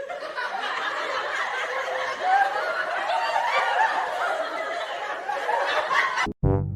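People snickering and chuckling for several seconds. Near the end a loud, low, buzzing fart sound effect from the prank cuts in abruptly.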